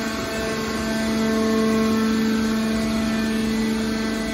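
Hydraulic power unit of a scrap-metal baler running: the electric motor and pump give a steady hum with a constant whine.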